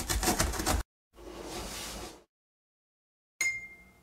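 Cartoon sound effects: a box-cutter blade rasping through a cardboard box in fast scratchy strokes, then a second of rushing noise as the box opens, and near the end a short bright ringing tone that fades away.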